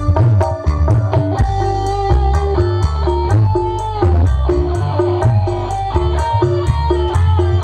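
Dangdut music played loud through a PA speaker system during a sound check: an electric guitar melody with slides over heavy bass and a steady drum beat.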